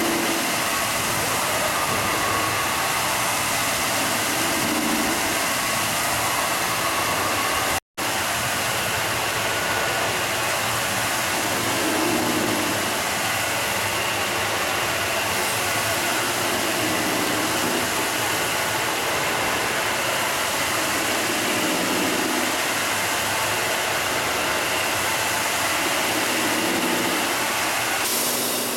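Nine-head automatic slab polishing machine running, its polishing heads spinning against stone slabs and making a steady, even whir and hiss. The sound cuts out for a split second about eight seconds in.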